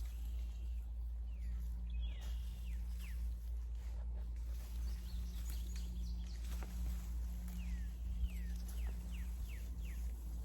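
Wild birds giving short, downward-sliding chirps in two small bursts, about two seconds in and again near the end, over a steady low hum.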